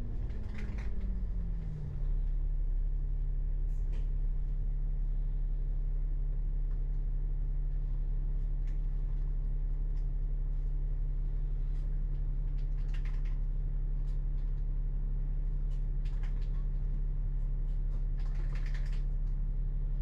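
A vehicle engine winds down in pitch over the first two seconds, then runs at a steady idle with a deep low hum. A few faint clicks and rattles come through, around four, thirteen and nineteen seconds in.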